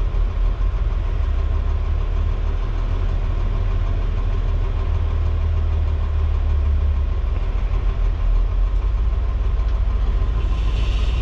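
Heavy diesel engines idling with a steady low rumble, heard from inside a dump truck's cab, with a wheel loader working alongside.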